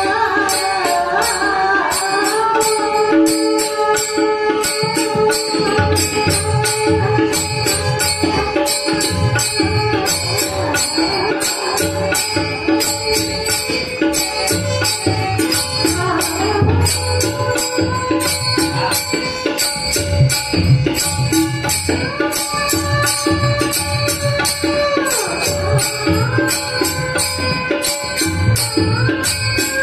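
Marathi devotional bhajan: a man sings with gliding melodic lines over steady sustained instrument tones. Jingling hand percussion keeps a quick, even beat, with low drum strokes underneath.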